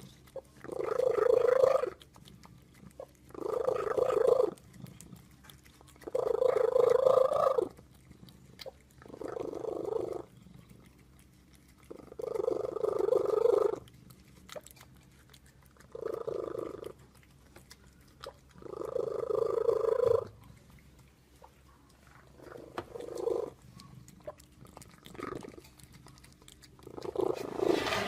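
Domestic cat making loud, drawn-out purring sounds, each lasting one to two seconds and repeating about every three seconds, with short quiet gaps between them.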